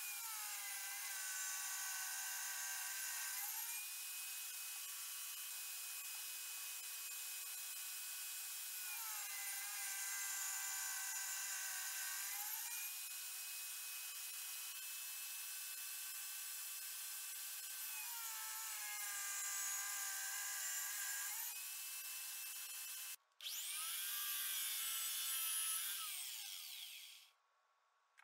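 Bench-mounted circular saw running and ripping pine boards, three times in a row. With each cut the motor's pitch drops under load for about three seconds, then comes back up as the board clears the blade. Near the end a louder saw sound starts after a brief gap, its pitch falling, and stops suddenly.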